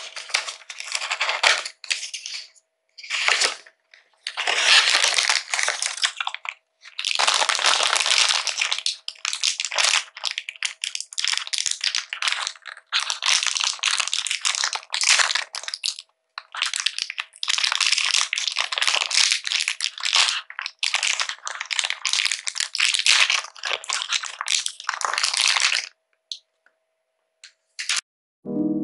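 Packaging being handled and torn open: a cardboard blind box and the crinkly printed plastic bag inside it, crinkling and rustling in irregular bursts with short pauses.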